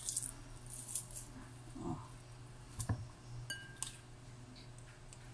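Metal garlic press crushing garlic cloves: soft squishing with scattered light metallic clicks and taps, the sharpest about three seconds in.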